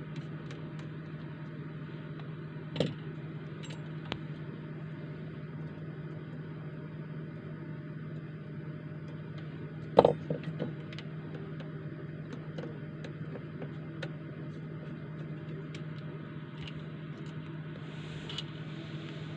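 Small clicks and taps of hand tools on a phone being taken apart, with a louder tap about three seconds in and another about ten seconds in, over a steady low hum.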